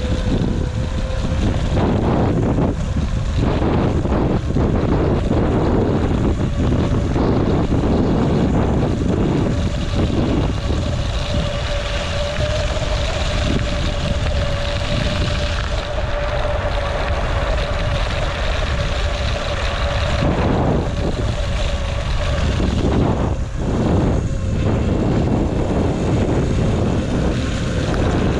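Wind buffeting the microphone of a camera travelling along a rough hillside track, with a low rumble and a steady mid-pitched whine that fades after about twenty seconds.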